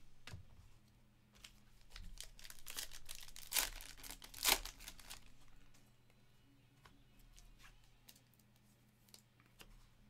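Trading card pack wrapper being torn open, then cards handled. A run of crinkly rustling from about a second and a half in, with two sharper rips about three and a half and four and a half seconds in, then only faint scattered clicks of cards.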